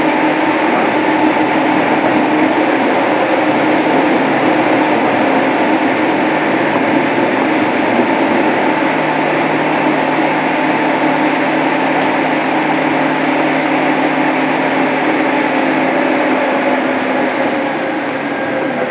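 Inside a JR Kyushu 103 series 1500-subseries EMU motor car under way: the steady running noise of wheels on rail, with the hum of its DC traction motors and gears holding a constant pitch. It eases slightly near the end.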